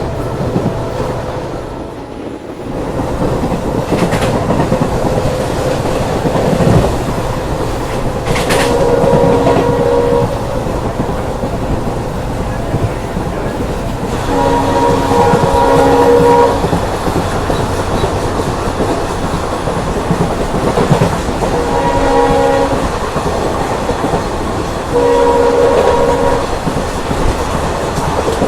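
Train running at speed, loud and steady, while the WDP4D diesel locomotive at its head sounds its multi-tone horn four times, the second blast the longest at about two seconds.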